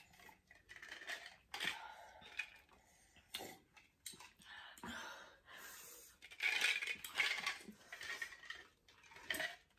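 Sips from stemless glass tumblers, with scattered light clinks of glass.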